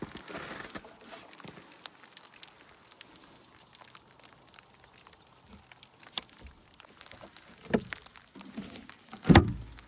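Ice pellets and rain pattering down in many small scattered ticks, with a dull thump about two seconds before the end and a louder, heavier thump just before the end.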